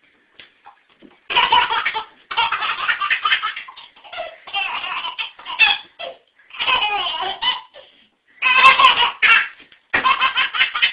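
Baby laughing hard in repeated bouts of belly laughter, starting about a second in, with short pauses between the bouts.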